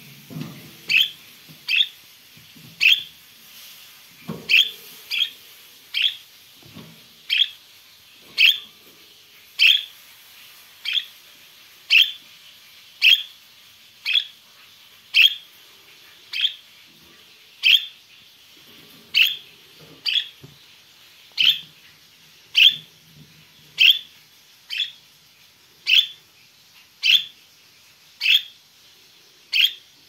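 Budgerigar calling: one short, high chirp repeated at a very steady pace, about once a second, with faint rustling in between.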